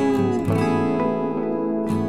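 Background music: an acoustic guitar strummed and plucked in a steady rhythm.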